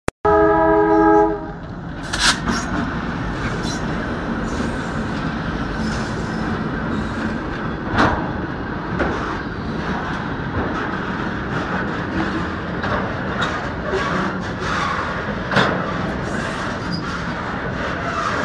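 A locomotive horn sounds once at the start, a chord of several steady tones lasting about a second. Then a freight train of oil tank wagons rolls past with a steady rumble of wheels on rail, broken by scattered sharp clicks.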